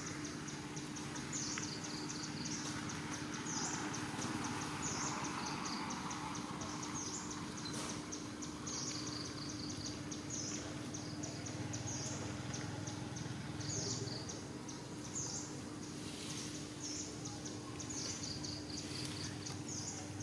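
Insects calling in a high-pitched, fast pulsing chorus that swells every second or two, over a steady low hum.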